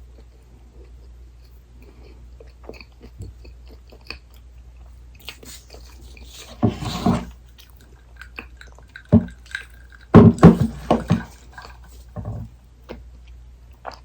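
Close-miked eating of dessert: faint wet mouth clicks, then louder bursts of biting and chewing about seven seconds in and again from about ten to eleven seconds.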